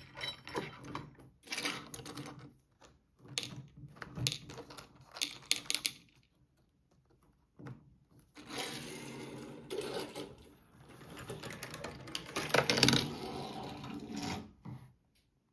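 Hard plastic toy parts clicking and rattling as they are handled, in irregular bursts, with a short pause around the middle and a longer stretch of rattling near the end.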